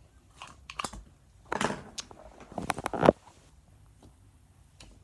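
Slime being handled in its plastic tub: a run of sharp clicks and short squishy bursts over the first three seconds, then near quiet.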